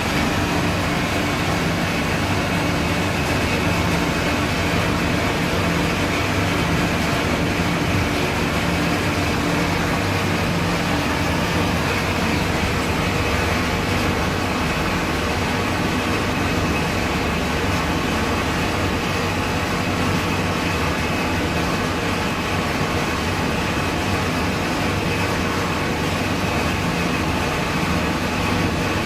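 Steady drone of running machinery with a low engine-like hum, continuous and unchanging in loudness.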